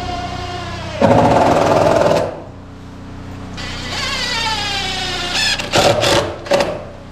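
Electric power tool motor whirring in bursts: one hard burst about a second in, a longer run whose pitch sags and then holds, and a few short stabs near the end.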